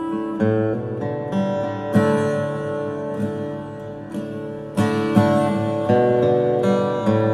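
Instrumental background music on acoustic guitar: ringing chords picked and strummed, a new note or chord sounding every second or so, with no singing.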